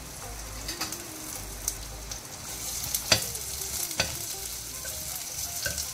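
Sliced shallots frying in hot coconut oil in a clay pot, giving a steady sizzle. A metal spoon stirs and scrapes through them, with a few sharp knocks against the pot; the loudest comes about three seconds in.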